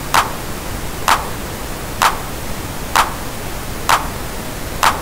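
A sampled drum-machine clap hitting six times, about once a second, over steady pink noise from the MNoiseGenerator plugin. The clap is played against the pink noise to judge its tonal balance before EQ.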